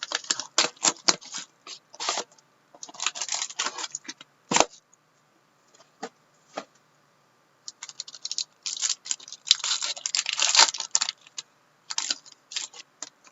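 Plastic wrapping on a sealed box of trading cards being torn and crinkled open, in irregular crackling bursts with short pauses between them.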